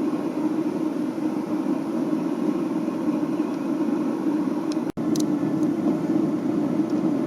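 Propane burner of an Atwood RV water heater burning with a steady, even rush of flame, a consistent burn that the owner judges sounds good. The sound drops out for an instant about five seconds in.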